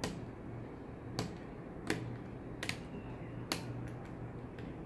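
A string of sharp, irregular plastic clicks, five loud ones and a few fainter, as fingers pry the battery cable connector of a Dell Precision 5510 laptop out of its socket on the motherboard.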